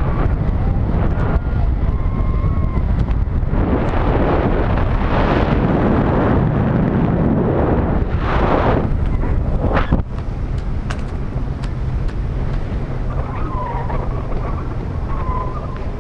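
Wind buffeting the microphone of a pole-mounted action camera in the airflow of a parasail ride: a loud, rough low rumble that swells in gusts in the middle and eases slightly after about ten seconds.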